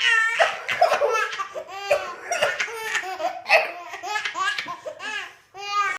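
Baby laughing: a string of high-pitched laughs in quick succession, with a short break near the end before one more laugh.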